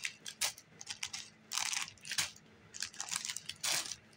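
Plastic instant noodle packets crinkling as they are picked up and moved, in a string of irregular short rustles.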